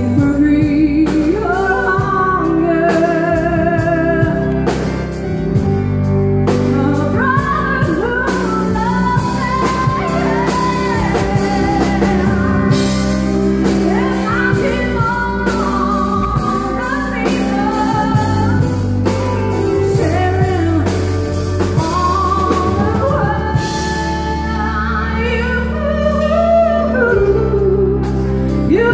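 A woman singing live into a microphone, with keyboard accompaniment over a steady bass and beat.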